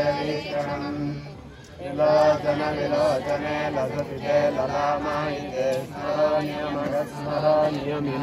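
Men's voices chanting Hindu mantras in drawn-out, sustained tones, with a short pause about a second in.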